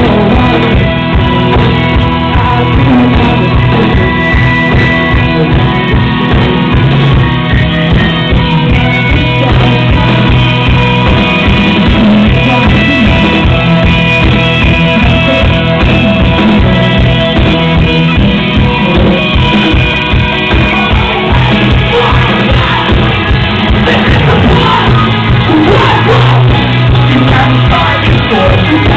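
Live rock band playing loud, with a driving drum beat, bass and electric guitar and shouted vocals over the top.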